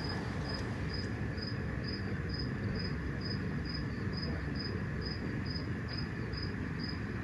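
Cricket chirping steadily, a short high chirp about twice a second, over a low background hum.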